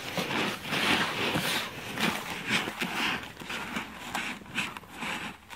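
Hands stirring and turning damp grass and legume seed in a flexible plastic tub, making a rapid, irregular run of rustling swishes as the seed is worked to coat it evenly with a liquid biostimulant inoculant.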